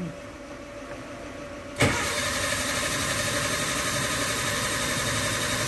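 Maruti Gypsy's engine cranked by the starter motor for a test start with the ECM connected: a sharp click about two seconds in, then a steady cranking run that keeps going for about four seconds.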